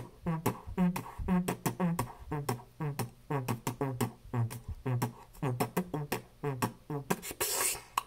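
A man beatboxing: mouth percussion in a steady rhythm over a hummed bass line of short notes switching between two pitches, about three a second. A longer hiss, like a cymbal, comes near the end.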